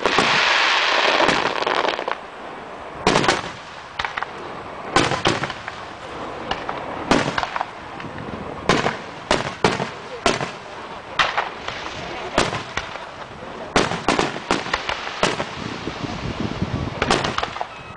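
Aerial fireworks bursting in an irregular series of sharp bangs, some close together. A dense crackling hiss fills the first two seconds.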